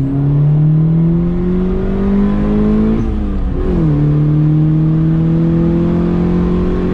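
Turbocharged Honda D16Z6 single-cam four-cylinder pulling hard under boost, its pitch climbing through a gear. About three seconds in it upshifts: the revs drop sharply, then climb again in the next gear.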